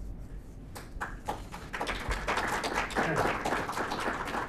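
Audience applauding, a few claps about a second in that quickly build into full, steady applause.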